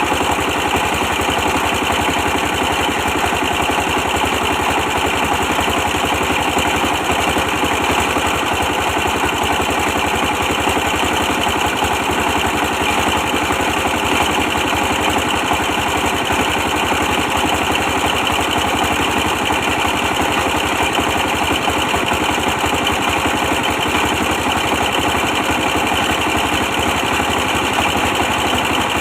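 Old 24-horsepower diesel engine running steadily at a constant speed, driving a brick press machine.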